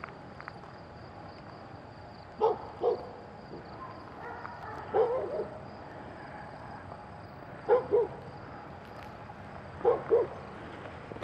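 A dog barking in pairs of short barks, four times, about every two and a half seconds. A faint steady high whine runs underneath.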